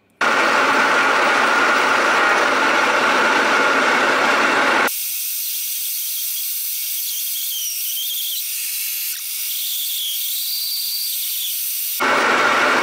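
Metal lathe running while a bi-metal hole saw in the tailstock chuck cuts into a spinning metal plate, giving a loud, even cutting noise. About five seconds in, the low part drops away abruptly, leaving a thinner high hiss with a wavering squeal. The full noise comes back near the end.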